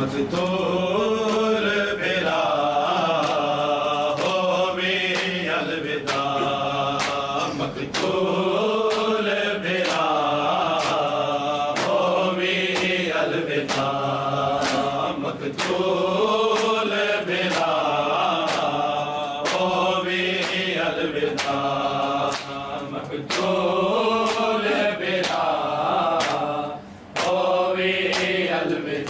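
A group of men chanting a noha, a Shia mourning lament, in unison. Sharp chest-beating slaps (matam) land about once a second and keep the beat. The chanting breaks off briefly near the end.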